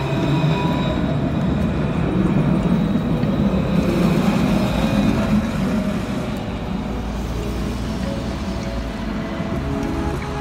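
Light-rail tram running along its track: a steady rumble that builds to a peak about halfway through, then fades as the tram moves away.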